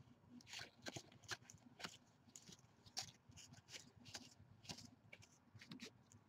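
Faint, irregular flicks and swishes of trading cards being slid one at a time off a hand-held stack.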